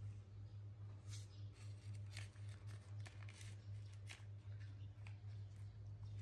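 Faint short rustles and scrapes from a baby monkey eating and handling mango pieces on a plastic plate, a few sharp ones about a second apart, over a steady low hum.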